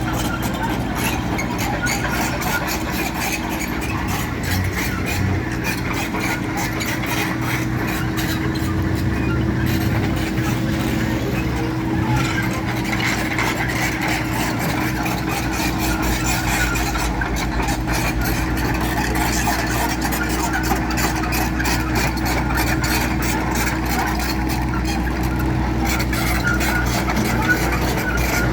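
Heavy machinery engine running steadily: a constant low hum with a steady tone above it that holds throughout.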